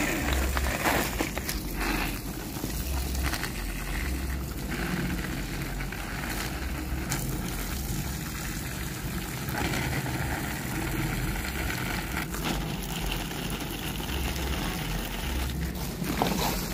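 Water spraying from a garden hose onto potted plants and soil: a steady hiss, with intermittent low rumbling.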